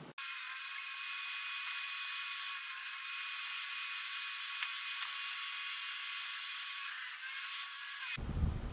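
Delta table saw running through a crosscut on a plywood sled: a steady, thin, high motor whine with no low rumble, cutting in and out abruptly.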